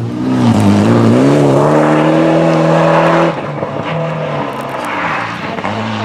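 Rally car engine revving hard as the car passes at speed: the pitch dips and climbs through gear changes, holds high, then drops sharply a little after three seconds in as the driver lifts off, leaving a quieter engine note as the car pulls away.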